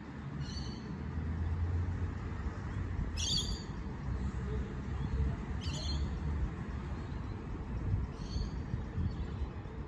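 A bird gives a short, high call about every two and a half seconds, three times, over a steady low rumble.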